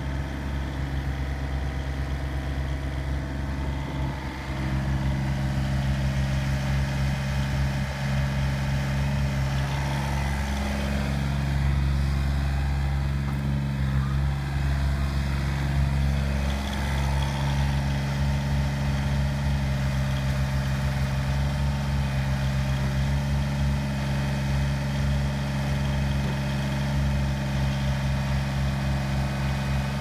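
Komatsu PC27MR-2 mini excavator's diesel engine running steadily while the machine swings its upper structure and works the boom and bucket. The engine note steps up about four seconds in and holds there, with two brief dips.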